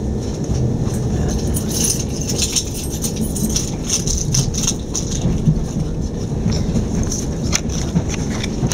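Running noise heard inside an Electrostar electric train on the move: a steady rumble with scattered clicks and rattles.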